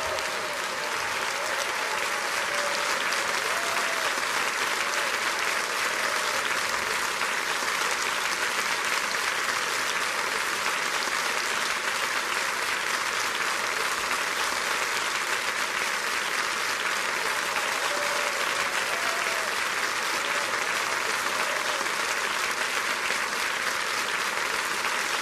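A large audience applauding: dense, continuous clapping at a steady level.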